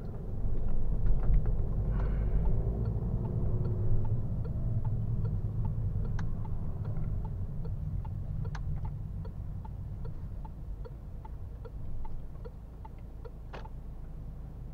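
Turn-signal indicator ticking steadily, about two ticks a second, inside the cabin of a Citroën Berlingo, over the low rumble of its 1.5-litre BlueHDi diesel and the road. The rumble eases as the van slows.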